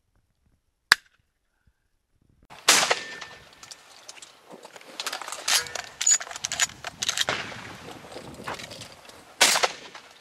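Two shotgun shots, one about three seconds in and one near the end, each with a short echo. Between them come light clicks and rattles of the gun being handled and reloaded.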